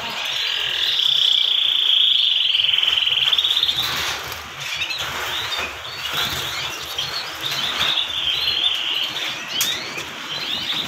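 Many domestic canaries singing and chirping together, males in full song. A long, fast rolling trill runs through the first three and a half seconds, with another shorter trill near the end over a constant scatter of chirps.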